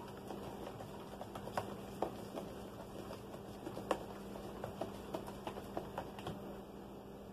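A plastic spoon stirring liquid in a plastic jug, knocking and scraping against the sides in quick, irregular clicks.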